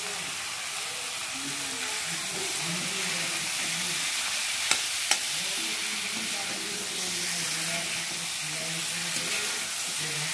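Chicken pieces sizzling as they fry in hot oil in a kadhai, with ginger-garlic paste and turmeric, while being stirred. Two sharp knocks come about halfway through.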